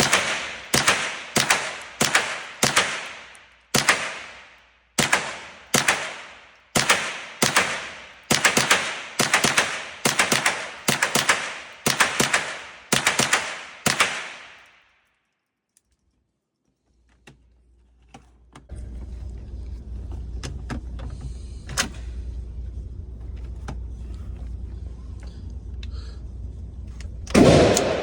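A long string of gunshots fired in quick succession, about two a second, each followed by a short echo. The shooting stops about halfway through. After a brief lull there is a steady low rumble with a few scattered clicks, and shots start again just before the end.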